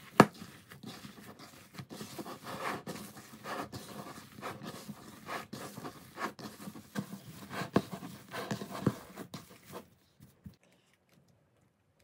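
Raw minced beef kneaded by hand in a bowl: irregular wet squishing and slapping, with one sharp slap just after the start. It stops near the end.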